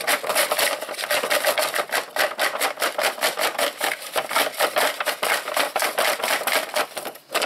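Folded paper lots being shaken in a plastic bowl under a paper lid, a rapid rhythmic rattle and rustle of paper, several shakes a second, as the lots are mixed for a draw.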